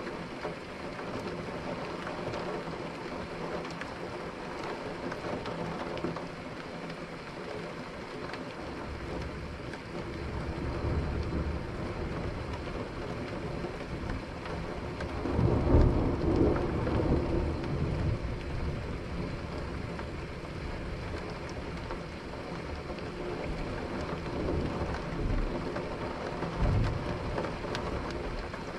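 Steady rain with thunder rumbling several times. The rumbles build about ten seconds in, are loudest about halfway through, and a shorter one comes near the end.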